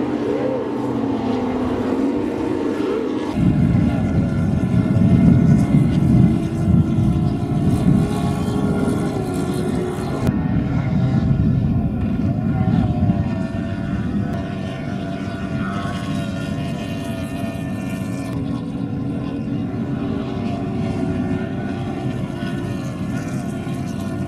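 Formula 2 race powerboats' outboard engines running at high revs as the boats race past and round the turn buoys, several engines at once with their pitches wavering up and down. The sound gets louder and fuller about three seconds in, when the boats are close.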